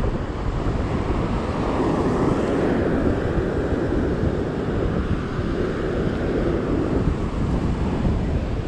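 Wind buffeting the microphone steadily, with ocean surf rushing behind it.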